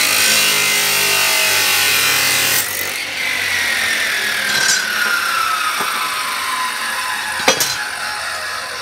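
Panda abrasive cut-off saw grinding through steel angle iron. About two and a half seconds in the cut ends and the motor's whine falls steadily in pitch as the disc winds down, with one sharp knock near the end.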